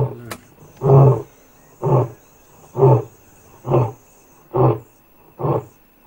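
A recorded male lion's territorial roar played through horn loudspeakers: the closing series of short, deep grunts, six in a row about a second apart.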